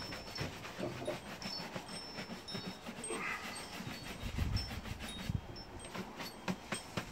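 Shoe brush buffing polish on a leather boot, with quick back-and-forth strokes several times a second in a steady rhythm.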